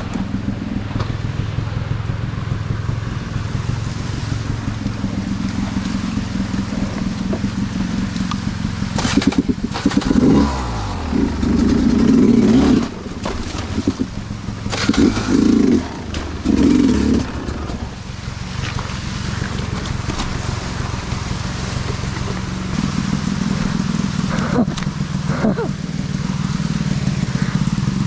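Two-stroke dirt bike engine running at low revs, revved up in loud bursts about ten seconds in and again a few seconds later.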